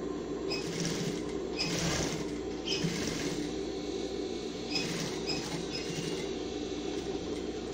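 Industrial single-needle sewing machine running steadily, stitching an edge seam through trouser fabric and pocket lining, with a few brief rustles of the fabric being handled and turned.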